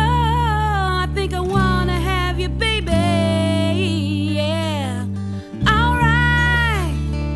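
Music: a sung melody over steady guitar chords.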